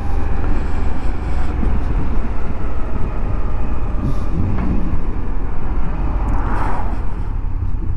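Moto Guzzi V85TT's V-twin engine running under heavy, steady low wind rumble on the microphone.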